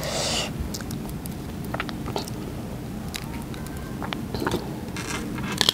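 Crisp bite and chewing of unripe green mango, with a brief crunch at the start and scattered small crunches and clicks after it.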